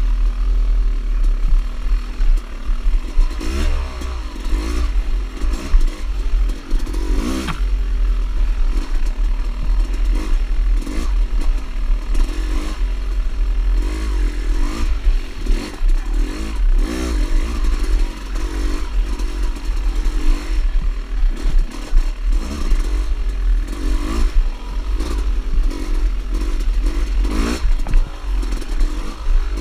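Dirt bike engine revving up and down again and again as the throttle is opened and closed, with short rattles and knocks from the bike over the rough trail and a heavy low rumble of wind on the microphone.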